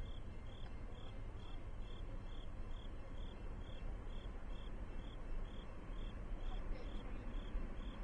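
Crickets chirping in a steady, even rhythm of about two chirps a second, over a faint low rumble.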